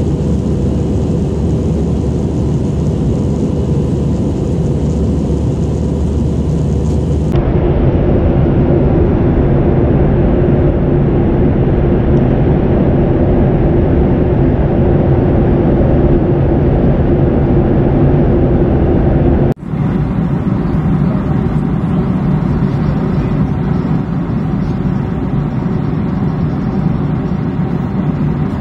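Steady drone of engine and airflow noise inside a jet airliner's cabin in cruise flight. The drone changes character abruptly about seven seconds in and again near twenty seconds.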